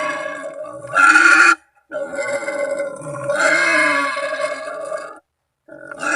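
Wild pig calls, given to call up companions or rivals: drawn-out, rough squealing grunts. There is a short loud call about a second in, a long call of about three seconds that swells midway, and another call starting near the end, with brief gaps of dead silence between them.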